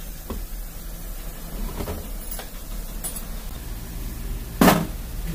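Engine parts being handled on a bare diesel engine block: a few light metal clicks as the front gears are worked by hand, then a louder short clatter near the end, over a steady low hum.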